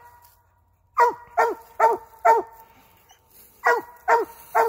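Treeing dog barking up a tree, its quarry treed: seven loud chop barks, four in quick succession about a second in, then three more near the end, each dropping slightly in pitch.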